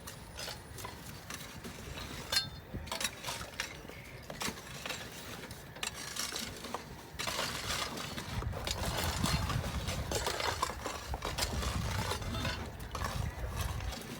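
Scattered clinks and knocks of stones and hand tools during stone-foundation masonry. A low rumbling noise sets in about halfway through.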